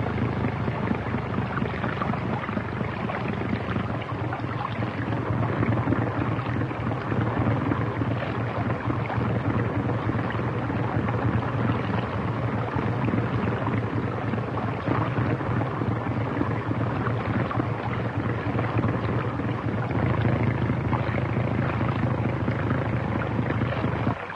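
Motorboat engine running with a steady low drone, mixed with churning water, cutting off abruptly at the very end.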